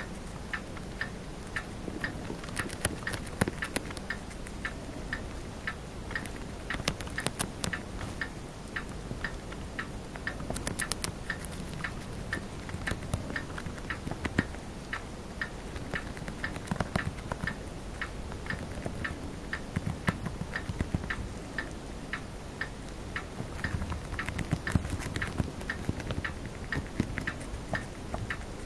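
Chinese dwarf hamster chewing a crisp green leaf: rapid, irregular small crunching clicks, several a second.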